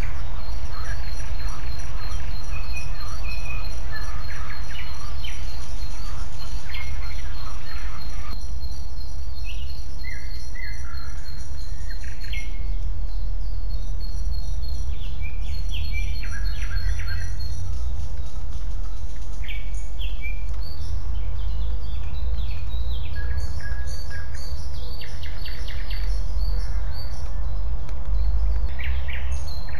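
Songbirds chirping and calling, with many short whistles and trills. A dense, fast high chirping cuts off suddenly about eight seconds in. A steady low rumble runs underneath.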